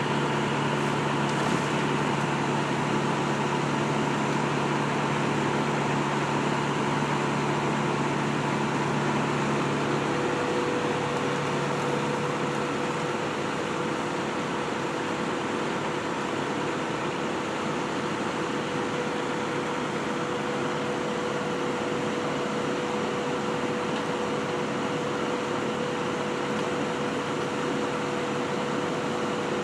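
Steady machinery noise with an engine running, its low hum giving way to a higher steady tone about ten seconds in.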